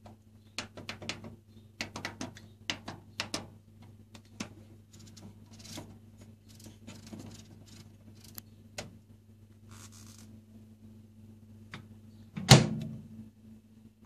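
Light clicks and taps of hands handling the Samsung microwave's front panel, then near the end one loud thunk as its door is shut and latches. A low steady hum runs underneath.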